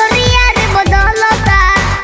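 Backing music of a Bhojpuri rap song: a steady beat with a deep, dropping bass drum under a stepped melody line.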